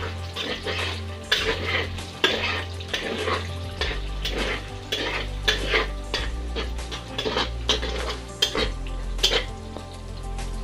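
A spatula scraping and knocking against a kadhai as eggs are stirred and scrambled in hot oil, in irregular strokes about two or three a second, with frying sizzle underneath.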